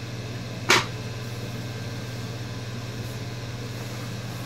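A single sharp click or tap, the loudest sound, about a second in, over a steady low hum.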